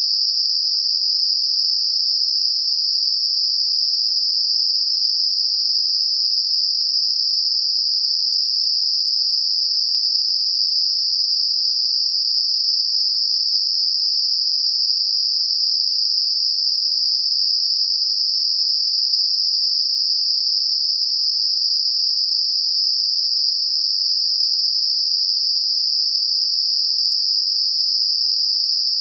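Synthetic Gaussian narrow-band noise centred on 5 kHz, a steady, unchanging high-pitched hiss used as a tinnitus masker.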